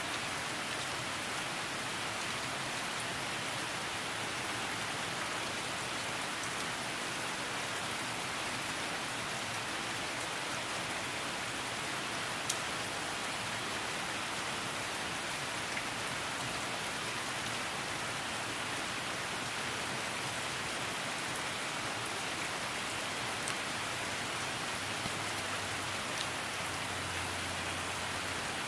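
Steady rain falling, an even hiss with occasional sharper drop ticks. A faint low hum comes in near the end.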